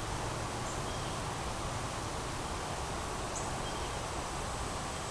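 Quiet woodland ambience: a steady hiss with faint, short insect chirps, and a thin, high insect buzz that starts about three seconds in and holds steady.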